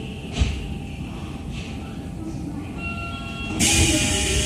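Tokyo Metro 8000-series subway car at a station stop: a short thump about half a second in, a few steady electronic tones near the middle, then a sudden loud hiss of air as the pneumatic doors slide open.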